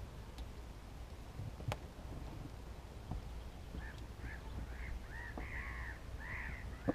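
Geese honking, a run of short repeated calls beginning about four seconds in. A sharp knock sounds about two seconds in and another at the end.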